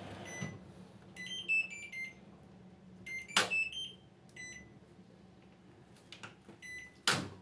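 TCL front-loading washing machine's control panel beeping as its buttons are pressed and the program knob is turned: short electronic beeps, with a quick run of several notes about a second in. Two sharp clicks, at about three and a half seconds and near the end, are the loudest sounds.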